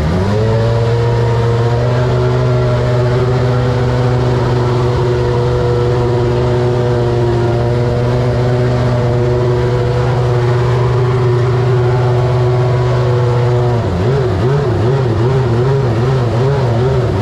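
Hart 415T turbocharged four-cylinder Formula One engine running at a steady raised idle. Its revs step up right at the start, and about three seconds before the end they begin rising and falling in a quick, even wobble.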